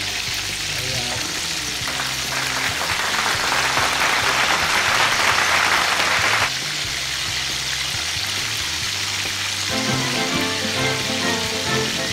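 Tilapia deep-frying in hot oil: a steady, crackling sizzle, loudest from about two seconds in until it drops suddenly at about six and a half.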